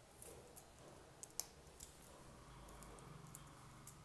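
Faint, scattered light clicks and taps from a metal wristwatch and its bracelet being handled and fastened on a wrist, over a low room hum.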